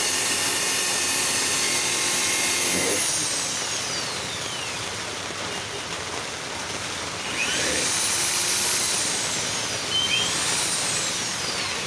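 Handheld corded electric drill boring into a metal upright, its high whine running at full speed and then winding down after about three seconds. It spins up twice more later on, each time briefly before slowing again.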